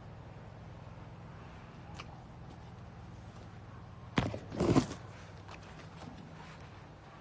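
Footsteps on orchard dirt over a low steady hum, with a loud rustling scrape in two parts about four seconds in as sapling leaves brush against the handheld phone.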